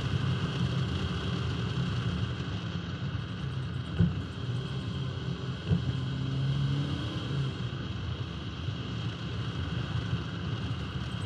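1971 Alfa Romeo 1750 GTV driving along a winding road, heard from outside the car's flank: a steady rumble of tyre, wind and engine noise, with the engine note coming through faintly in the middle. There are two short thumps, about four and about six seconds in.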